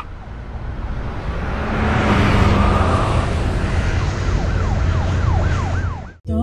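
Loud vehicle and road rumble with an electronic siren in its fast rise-and-fall yelp, about four sweeps a second, in the latter half; the sound cuts off just before the end.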